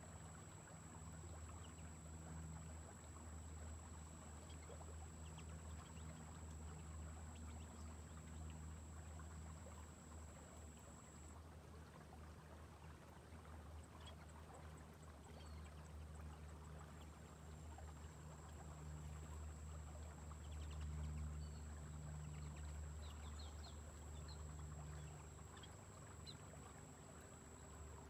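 Faint riverside ambience: a steady low rumble under a continuous thin, high-pitched whine, with scattered faint chirps. The whine pulses briefly about halfway through.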